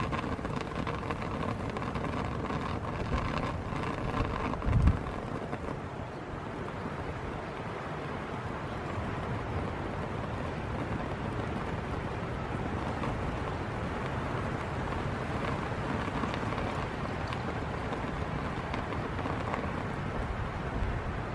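Steady crackling hiss of a pot of rice boiling and steaming under its lid over a carbon-felt alcohol stove. One low buffet of wind on the microphone about five seconds in.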